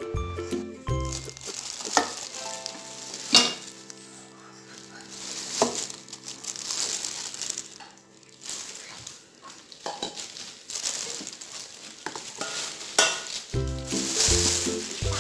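Bubble wrap and plastic film crinkling and rustling as they are pulled and handled, with a few sharp snaps, over background music.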